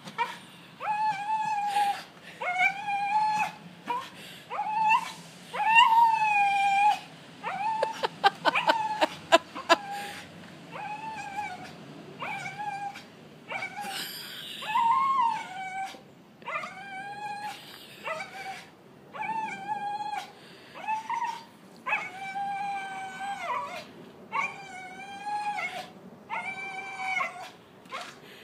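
Welsh terrier whining and yelping in high, level-pitched cries, each about half a second to a second long, repeated roughly once a second. About eight seconds in there is a quick run of sharp clicks.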